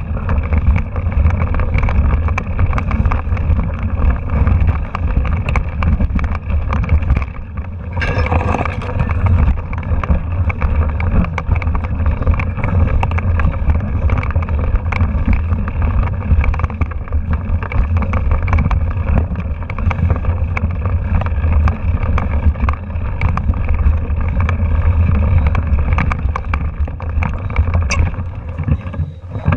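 Mountain bike riding over a rocky dirt trail, heard through a handlebar-mounted camera: a steady low rumble of wind and frame vibration with constant clicks and rattles from the bumps.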